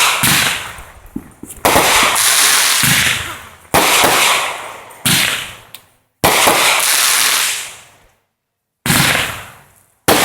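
Consumer fireworks going off: a run of about six sudden loud bursts, each trailing off over a second or two.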